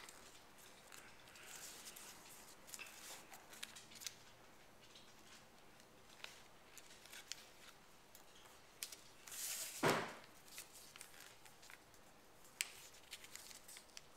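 Origami paper being folded by hand on a wooden table: faint crinkling, creasing and tapping of the sheet under the fingers, with a louder brushing swoosh about ten seconds in and a sharp tick a little later.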